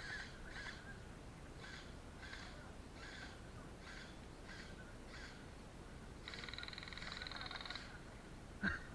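Faint bird calls: short harsh calls repeated about every half second, then a rapid pulsing buzzy call from about six seconds in, lasting about a second and a half.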